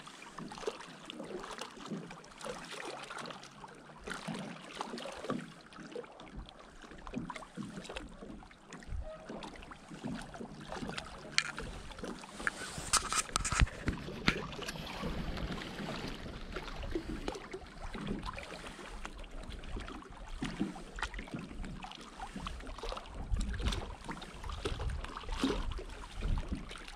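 Lake water lapping, with scattered small knocks and clicks of rod-and-reel handling during a slow lure retrieve, and a brief hiss about 13 seconds in.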